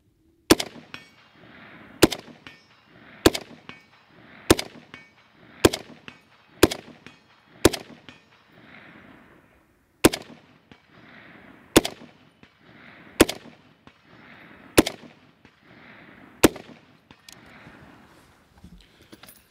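FN SCAR 17 .308 battle rifle with a muzzle brake, firing about a dozen semi-automatic shots at a steady pace, roughly one to one and a half seconds apart. Each shot echoes. There is a pause of about two seconds after the seventh shot.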